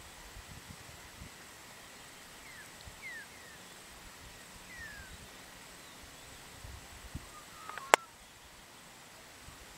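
Open-air ambience with steady faint hiss, a few short downward bird chirps in the middle, and one sharp click about eight seconds in.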